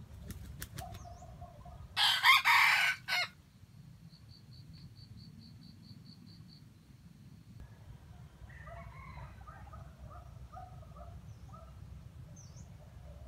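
Red junglefowl rooster beating its wings, then giving one short, loud crow about two seconds in that breaks off abruptly. Soft clucking notes follow later.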